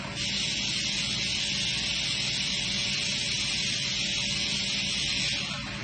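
A steady hiss of escaping air, starting abruptly and cutting off sharply about five seconds later, over a steady low machine hum.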